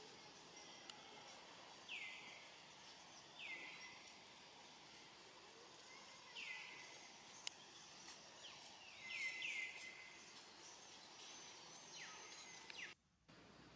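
Faint outdoor ambience with a bird repeatedly giving short calls that sweep down in pitch, one every one to three seconds, and a thin high whistle near the end. The sound cuts out briefly just before the end.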